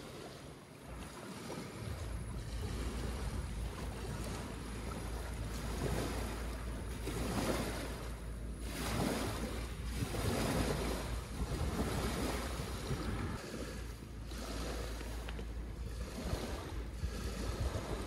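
Strong wind gusting over the microphone with a low rumble, and small waves washing in and out on a pebbly lakeshore in slow swells.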